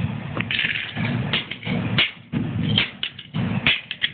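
An LCD alarm clock being bashed apart: about ten irregular sharp knocks and cracks against its casing and circuit board.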